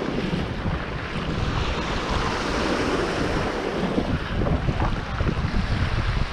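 Small waves breaking and washing over a shingle beach, with wind buffeting the microphone in gusts.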